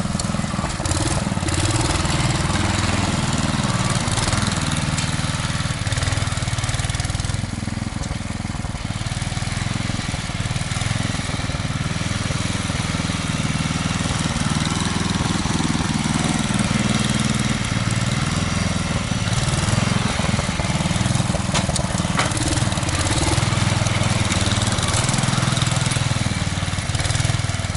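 Snow blower's small gas engine running steadily.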